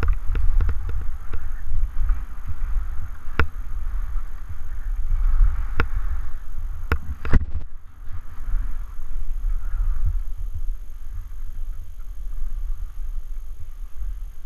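Wind buffeting a camera's microphone during a fast run down a groomed ski slope, with edges scraping over packed snow in swells. Four sharp clicks come between about a third and halfway through.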